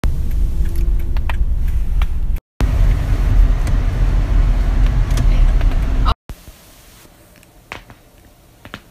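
Neck joints cracking with a few sharp pops. For the first six seconds a loud low rumble covers them, broken once by a brief dropout. In the quieter last few seconds there are two or three clear pops.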